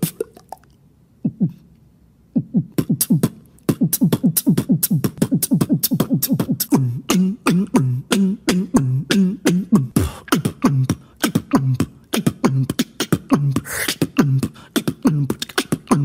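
Beatboxer's mouth and lip sound effects: a rapid, uneven run of pops and clicks mixed with short voiced tones that each drop in pitch. Only a single pop sounds in the first couple of seconds, and the run comes in thickly from about four seconds in.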